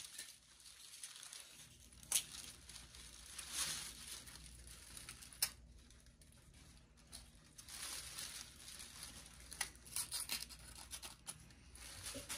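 Intermittent rustling and crinkling of craft material being handled at the workbench, with a few sharp clicks scattered through.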